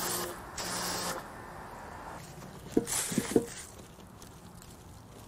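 Pressure washer spraying water on a soapy car body in two short bursts, its pump humming under the hiss. About three seconds in, a wash sponge squeaks and squishes a few times on the wet paint.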